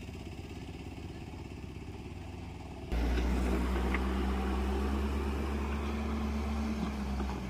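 A steady engine drone, then about three seconds in a sudden switch to a wheeled front loader's engine running loud and close under load. A gritty scraping comes with it as the toothed steel bucket pushes across loose gravel and dirt.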